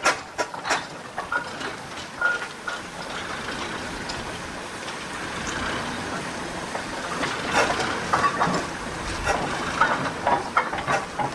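Fowell steam traction engine moving off under steam: irregular sharp knocks and clanks from the running engine, with a steady hiss of steam between them.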